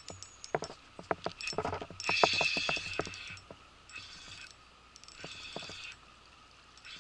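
A spinning reel cranked in short bursts, a whirring with a steady gear whine. The longest and loudest burst comes about two seconds in and three shorter ones follow. Scattered sharp clicks and taps fall between them.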